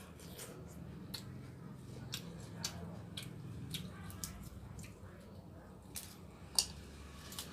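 Someone eating pork noodle soup: irregular soft wet clicks and smacks of chewing, with a sharper click about six and a half seconds in.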